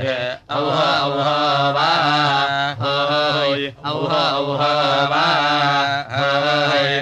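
Samaveda gana of the Kauthuma recension: a voice chanting long drawn-out vowels whose pitch wavers and bends. It breaks off briefly a few times.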